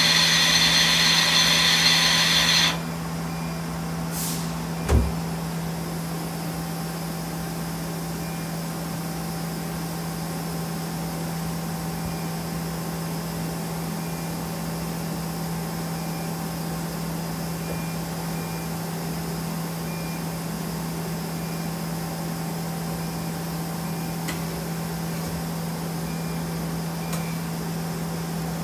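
Okuma Spaceturn LB3000 CNC lathe running with its spindle at 1,000 RPM. A loud hiss cuts off about three seconds in, leaving a steady machine hum, with one clunk about five seconds in.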